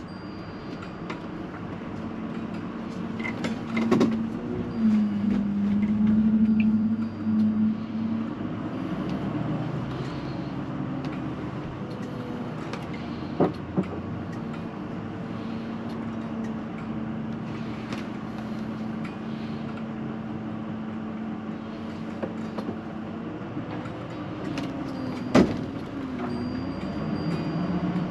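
Motorhome engine running steadily, its pitch shifting a few times as it is driven. A few sharp knocks or clicks, the loudest near the end.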